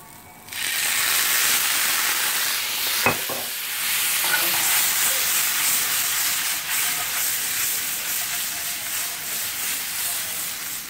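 Frying pan of button mushrooms in hot butter bursting into a loud, steady sizzle about half a second in as balsamic vinegar is splashed in. A single knock sounds about three seconds in.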